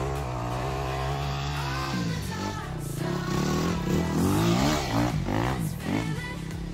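Yamaha YZ250F dirt bike's four-stroke single-cylinder engine revving, its pitch rising and falling several times from about two seconds in, over background music.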